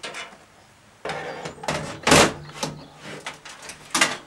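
Computer power supply unit being set into a metal PC case: a series of knocks and scrapes, the loudest about two seconds in.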